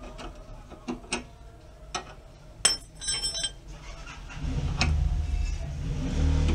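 Metal tools clinking against the stabilizer link hardware: a few light clicks, then a ringing metallic clink and several more rings in quick succession. About four and a half seconds in, a steady low rumble starts and stays louder than the clinks.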